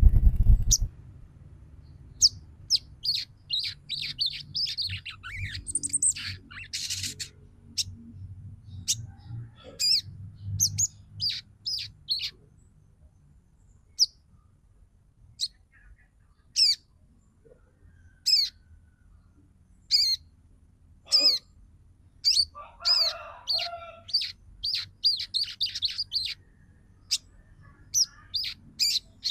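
Female sogon calling: a twittering chatter of short, sharp chirps that drop in pitch, some single and some in fast runs, with a lower warbling phrase about three-quarters of the way through. This call is used as a lure to set male sogons singing and bring them into breeding condition.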